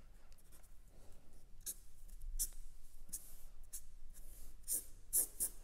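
Marker pen scratching across paper in a series of short, quick strokes as a floor-plan sketch is outlined and shaded, the loudest strokes near the end.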